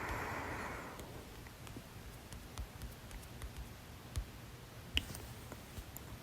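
A person's heavy breath through the nose and mouth lasting about a second, then a few faint sharp clicks, the clearest about five seconds in.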